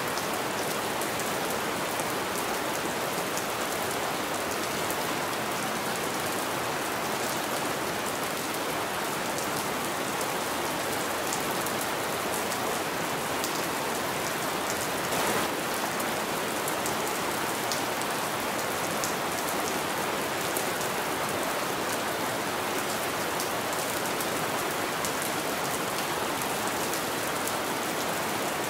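Steady rain on a window: an even hiss of rainfall with scattered sharper drop ticks, one slightly louder tick about halfway through.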